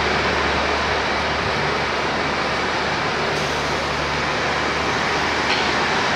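KiHa 40-series diesel railcar running: a steady rushing train noise over a low, steady engine hum.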